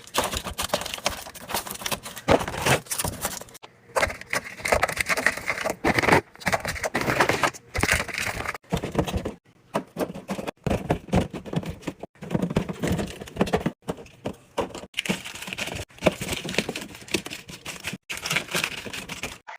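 Restocking handling sounds: snack packets crinkling and items clicking and clacking as they are set into bins and shelves, in quick bursts broken by sudden short gaps.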